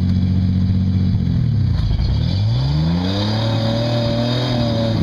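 Rock-crawler buggy's engine running steadily. Its note dips about a second and a half in, then revs up and holds at higher revs as the buggy climbs a rock ledge.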